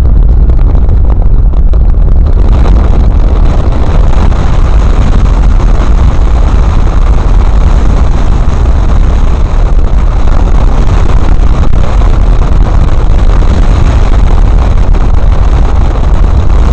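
Loud, steady rush of wind and road noise from a vehicle driving at speed, with heavy low rumble on the microphone; it turns brighter and hissier about two seconds in.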